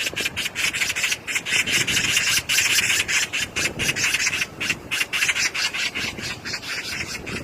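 A magpie's chattering rattle: a fast run of harsh calls, about seven a second, starting abruptly and easing a little near the end.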